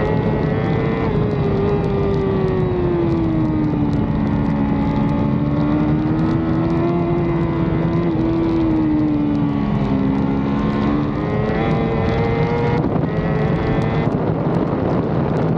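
Racing superbike engine heard from onboard, with a rush of wind noise. The engine note sinks over the first few seconds, stays low through the middle while the bike is leaned over in a corner, then climbs again near the end as the throttle opens.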